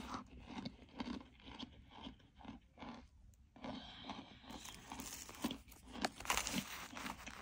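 Close-up bites and chewing of crunchy baked starch: one sharp bite at the start, then steady crunching about three chews a second, crisper and louder from about halfway through.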